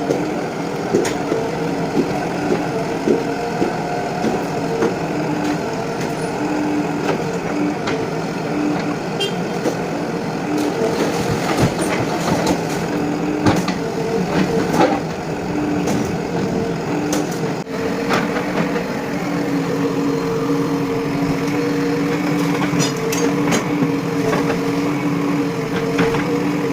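JCB 3DX backhoe loader's diesel engine running steadily under working load, with repeated sharp knocks and cracks of the machine breaking down the masonry of the building, thickest around the middle and again near the end.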